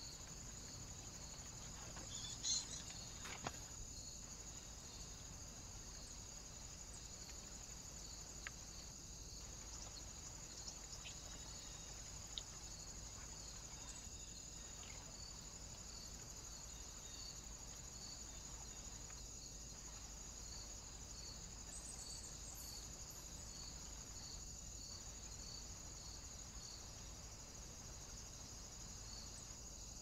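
Faint, steady chorus of crickets, a high continuous trill with a regular pulsing chirp, broken by brief dropouts about every five seconds. A few short faint clicks, the loudest about two and a half seconds in.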